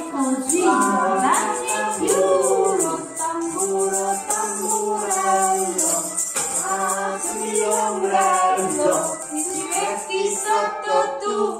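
A family of adults and a child singing together, with hand shakers rattling to keep the beat.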